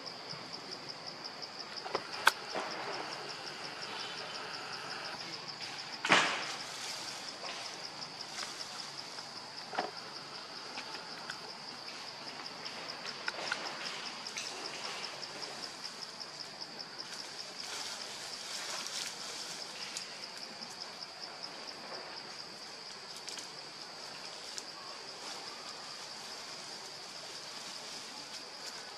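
Insects buzzing in a steady chorus: a high, rapidly pulsing drone that does not change. A few sharp cracks cut through it, the loudest about six seconds in.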